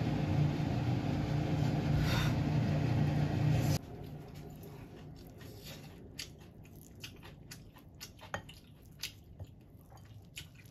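A steady low hum that cuts off abruptly a few seconds in, followed by soft chewing of fried rice and scattered light clicks of wooden utensils against a ceramic bowl.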